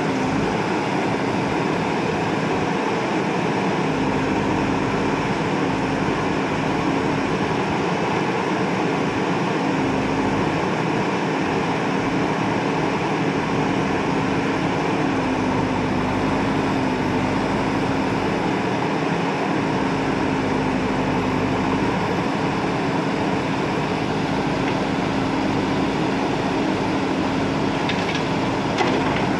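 JCB 3DX backhoe loader's diesel engine running steadily under load as the backhoe arm digs and dumps soil. Its pitch wavers slightly.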